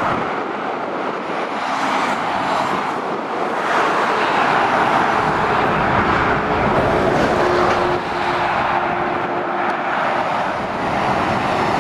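Road traffic passing: a steady rush of tyre and engine noise that swells as a coach approaches and passes underneath, easing about two thirds of the way through.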